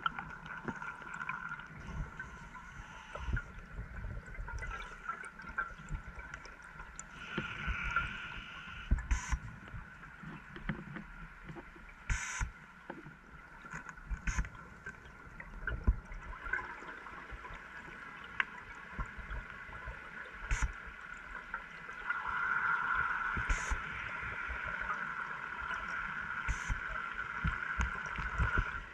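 Underwater sound picked up by a diver's camera: gurgling water and a steady hum, swelling louder for the last several seconds, with scattered sharp clicks.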